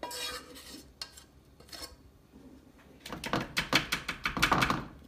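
A spoon knocking and scraping around the inside of a saucepan as sticky praline candy is cleared out. It opens with a ringing knock and has a couple of single taps, then a quick, louder run of scrapes near the end as the spoon spreads the candy across the lined baking sheet.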